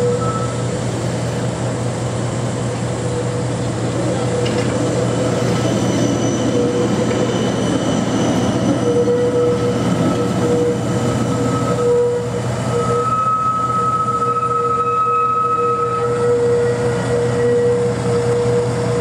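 Transtech Artic low-floor tram passing slowly on the rails: a steady running rumble with high, steady tones over it, one of them growing louder about two-thirds of the way through.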